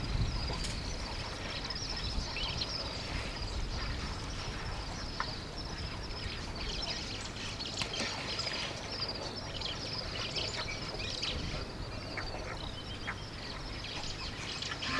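A chorus of small birds chirping and chattering continuously, many short high calls overlapping, over a low rumble.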